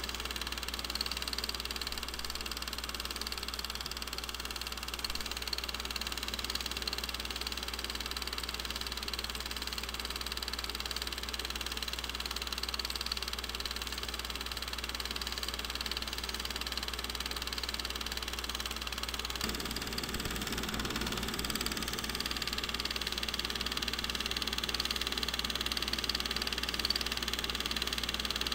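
Film projector running with a steady mechanical whirr and a constant low hum, the only sound on the track of a silent home movie; the running noise gets slightly fuller about two-thirds of the way through.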